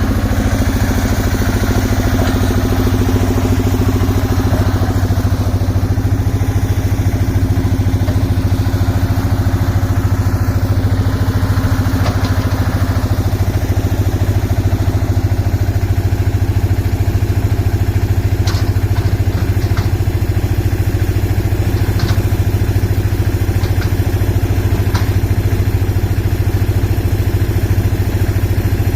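Engine of a concrete mixer with a ladder hoist running steadily at an even speed, a constant low hum. A few short sharp clicks or knocks come through in the second half.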